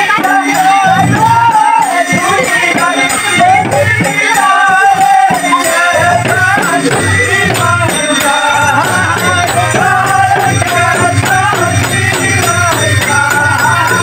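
Men singing a Bengali folk song together, accompanied by a harmonium and a double-headed barrel drum, with a rattling, jingling percussion keeping a regular beat. A steady low drone comes in about six seconds in.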